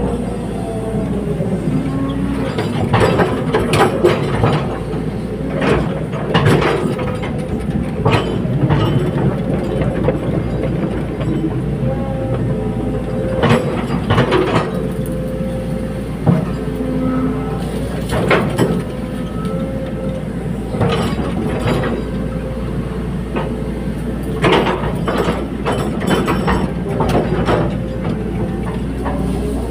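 Caterpillar 320D hydraulic excavator working: the diesel engine runs steadily under a whine that rises and falls as the hydraulics are worked. Sharp metallic clanks and rattles come at irregular moments, a dozen or so in all.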